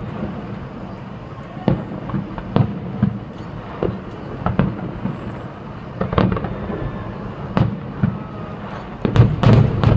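Aerial fireworks shells bursting at a distance: a string of sharp booms at irregular intervals, coming thicker and louder in a quick cluster near the end.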